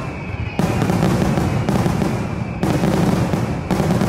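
Finale barrage of a Pirotecnia Tomás fireworks castillo: aerial shells bursting one on top of another with crackle. Fresh volleys break in about half a second in, around two and a half seconds, and near the end.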